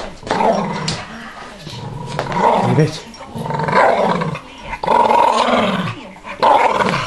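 Staffordshire bull terrier growling in a string of rising and falling growls, about one a second, while hanging onto a ball: play growling, not aggression.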